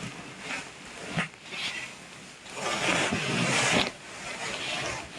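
A person snoring in deep sleep: one loud snore from about halfway through that breaks off sharply, with softer breathing between snores.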